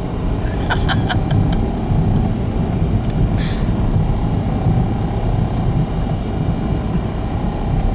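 Steady low rumble of road and engine noise inside a moving car's cabin. There is a short hiss about three and a half seconds in.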